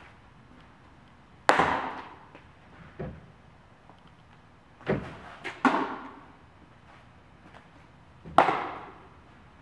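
Baseballs smacking into leather gloves as pitches and return throws are caught, several sharp pops each ringing briefly in a metal-walled building: loud ones about a second and a half in, twice around five seconds, and again near the end, with a smaller one in between.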